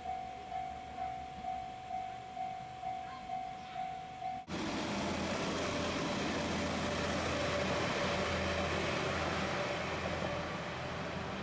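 Japanese level-crossing warning bell ringing, one tone repeated about twice a second. After an abrupt cut about four and a half seconds in, a diesel train runs past with a steady low drone under the noise of its running.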